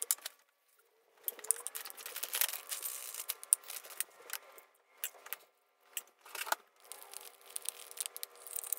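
Frozen diced vegetables rattling as they are poured into a ceramic mug, then a metal fork whisking eggs in a plastic cup, in quick light clicks against its sides.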